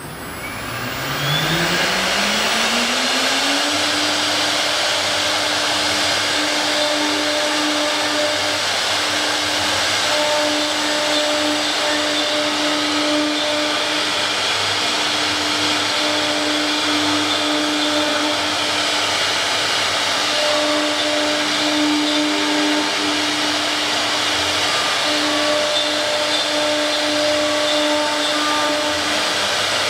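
CNC router spindle spinning up, its pitch rising over the first few seconds, then running steadily at speed with a constant tone over a broad rushing noise.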